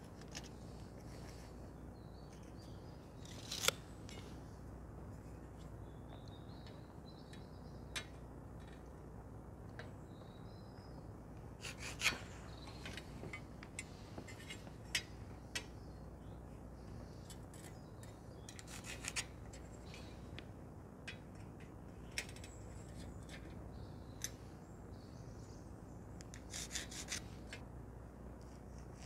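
Hand marking-out on a steel beam: faint scattered scrapes, taps and clicks of a square and pencil worked against the steel, with a few sharper clicks, over a low steady hum.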